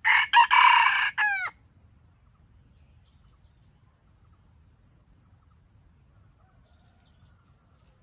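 Red junglefowl rooster crowing once: a short, clipped crow of about a second and a half that ends in a few quick falling notes.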